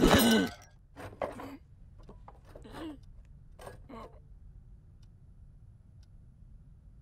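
A startled yelp that cuts off about half a second in, a few short nervous vocal sounds, then a wall clock ticking faintly over the last few seconds.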